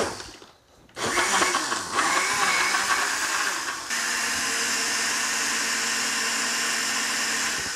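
Countertop blender with a glass jar running at full speed, blending milk, vanilla ice cream and Oreo cookies into a shake. It starts about a second in after a short click. Its pitch wavers for the first few seconds as the blades work through the thick mixture, then settles into a steady hum about four seconds in, and it stops near the end.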